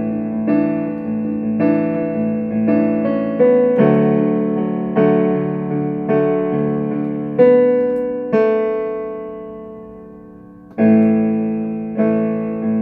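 Casio electronic keyboard in a piano voice playing chords of the song's progression, struck about once or twice a second. About two thirds of the way through, one chord is held and left to fade for a couple of seconds before the playing starts again.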